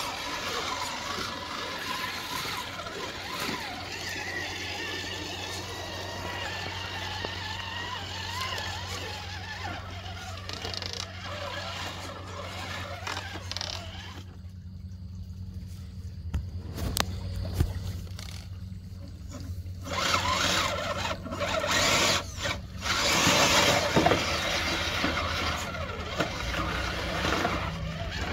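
Electric drive motors and gearboxes of two 1/10-scale RC crawlers whining as the trucks crawl through a shallow rocky creek, the pitch rising and falling with the throttle. The sound drops away for a few seconds around the middle, then comes back with louder, choppier bursts of noise in the last third as the trucks push on through water and over rocks.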